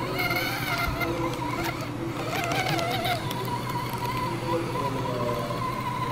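Furitek Fury FX118 1/18-scale RC crawler's brushless motor and gears whining as it crawls slowly, the pitch wavering with the throttle over a steady hum.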